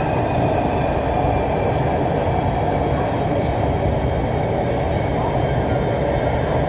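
Steady running noise of a Lahore Orange Line metro train, heard from inside the moving carriage, with a faint high whine above it.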